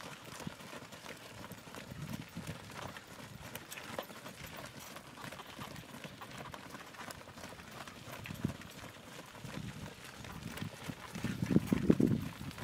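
Hooves of a small herd of cattle trotting on a dry dirt trail: an irregular patter of thuds, with a louder low burst about a second before the end.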